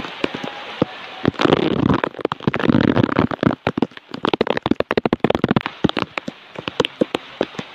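Rain, with many sharp drop taps close by throughout and several stretches of rustling noise in the middle.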